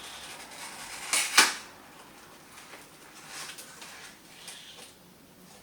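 Packaging being handled during unboxing: a loud cluster of sharp clacks a little over a second in, then fainter scattered clicks and rustling.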